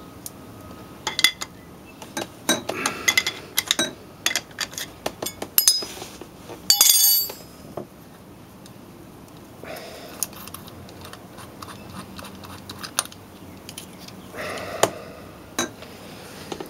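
Steel hand tools and a threaded bearing-installer tool clinking against each other and the compressor pulley hub as they are handled and taken off the shaft. There are a string of sharp clinks over the first several seconds, a loud clank about seven seconds in, then quieter handling.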